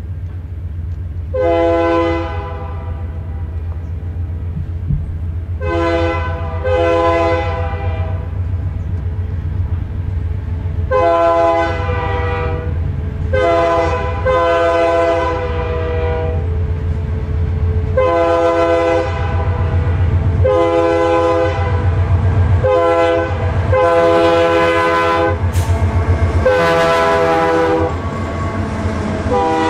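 Diesel locomotive's multi-chime air horn (a Nathan K3) blowing a series of long and short blasts, some in close pairs, over the steady low rumble of the approaching train.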